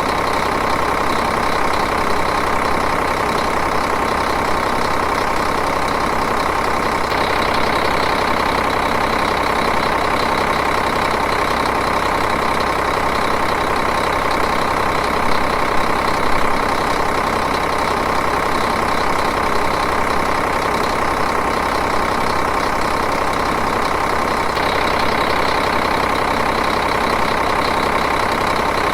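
Diesel engine idling steadily, with an even, unchanging rapid pulse.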